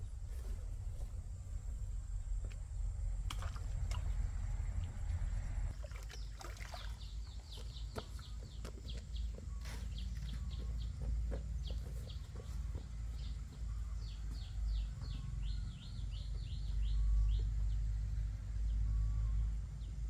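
Birds chirping: many short, high chirps, each sliding down in pitch, coming in quick runs from about a third of the way in. Under them runs a steady low rumble, with a few scattered knocks.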